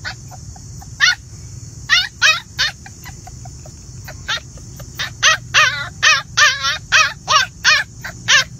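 Puppies yelping in a rapid string of short, high, wavering yips, two or three a second, with a pause of about a second and a half near the middle. A steady high hiss runs underneath.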